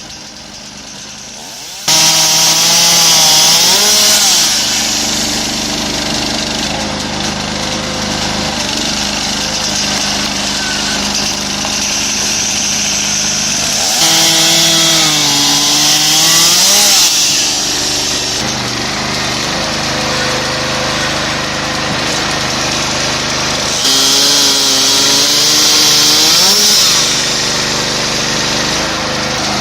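A chainsaw-type saw cutting through logs. The engine starts loud about two seconds in and makes three cuts roughly ten seconds apart, each a few seconds of harsh sawing noise while the engine's pitch sags under load and then recovers.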